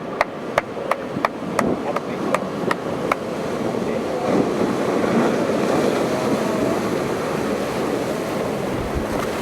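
Ocean surf and waves rushing as a steady noise, a little louder after about three and a half seconds. During the first three seconds there is also a run of sharp clicks, about three a second.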